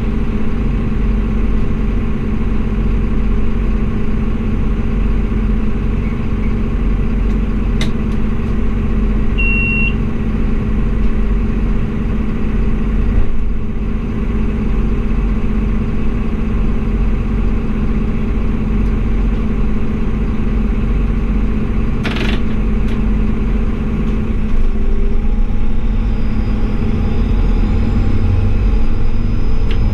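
Class 840 RegioSpider diesel railcar running along the line, a steady engine drone mixed with wheel and rail rumble. A short high beep comes about ten seconds in and a brief hiss around twenty-two seconds, and the low rumble grows louder near the end.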